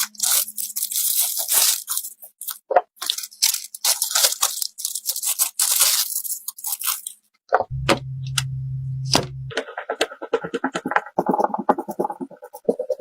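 Computer parts and their packaging handled close to the microphone: crinkling and scraping for the first seven seconds, a low steady hum for about two seconds, then a run of quick clicks and rattles.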